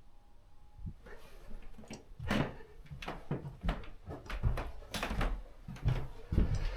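A run of irregular knocks, clicks and clatters in a small room, starting about a second in and growing busier and louder later.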